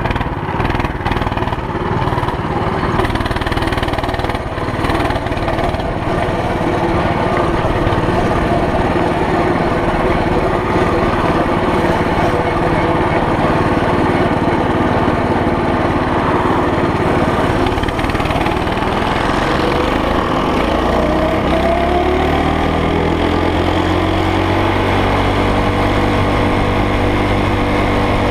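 Small single-cylinder go-kart engine running on the move. About 20 seconds in its pitch falls and settles to a lower steady speed as it slows down.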